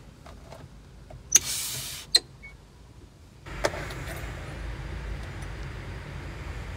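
Clicks and handling sounds in a truck crane's cab, with a short hiss about a second and a half in. From about three and a half seconds in, a low steady hum sets in.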